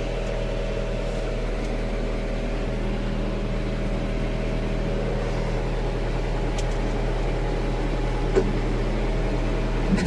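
John Deere 325G compact track loader's diesel engine idling, a steady even hum, with a couple of faint clicks.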